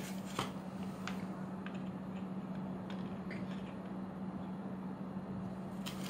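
Quiet room tone with a steady low hum and a few faint light clicks from small parts and packaging being handled on a desk.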